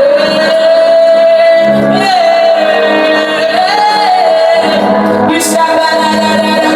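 Worship music: a voice holds a long, sustained note with small turns in pitch over sustained accompanying chords.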